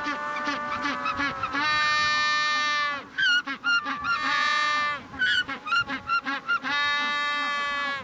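Male Magellanic penguin braying: runs of short honking notes, with two long drawn-out brays about a second and a half each, one starting about a second and a half in and one near the end. It is his display call, loudly claiming his burrow and mate.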